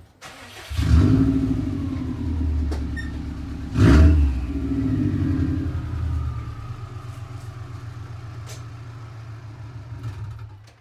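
A Subaru car engine starts about a second in and flares up, revs briefly once more a few seconds later, then settles into a steady idle.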